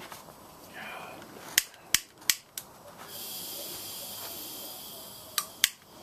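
Hand-held propane torch being lit: four sharp clicks, then a steady gas hiss from the opened valve for about two seconds, then a few more clicks near the end.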